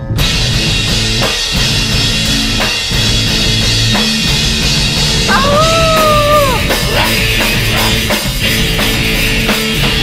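Rock band starting suddenly at full volume: drum kit with crashing cymbals and electric guitar. About five seconds in, the singer holds one wordless note that drops off at its end.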